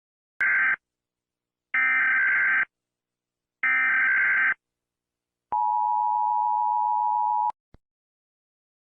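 US Emergency Alert System alert: three short screeching bursts of SAME header data, then the two-tone EAS attention signal held steady for about two seconds before cutting off abruptly.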